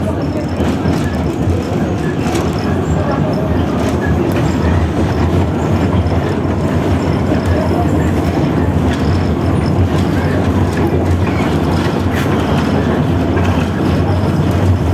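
Steady running noise of a 71-154 (LVS-2009) tram car at speed, heard from inside the car: wheels rumbling on the rails over a low drone, with occasional faint clicks.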